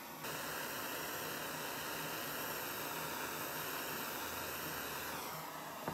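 Small brass pencil gas torch burning with a steady hiss while heating a small steel ratchet part for oil quenching. The flame starts about a quarter second in and fades out near the end, followed by a brief click.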